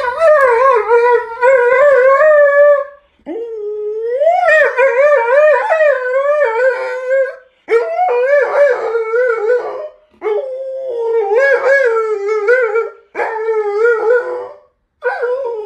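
Alaskan malamute 'talking': long, wavering howl-like vocalizing with the pitch wobbling up and down, in about six phrases of two to four seconds each, separated by brief pauses.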